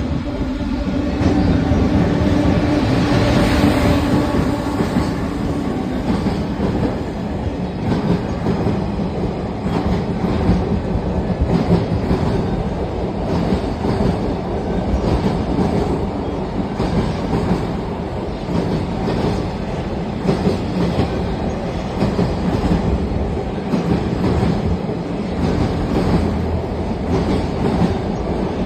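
Freight train passing at speed, its wagons clattering steadily over the rail joints in a long, even run of clicks over a heavy rumble.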